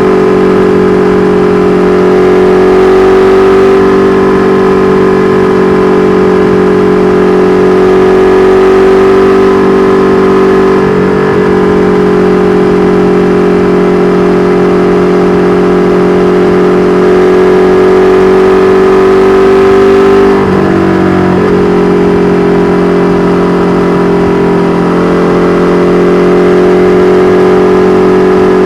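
KTM 1290 Super Duke R Evo's V-twin engine running through an Austin Racing V3 Mini exhaust at a steady, nearly constant engine speed, as when cruising. The note briefly dips and breaks twice, about eleven and twenty seconds in, as when the throttle is rolled off or a gear is changed.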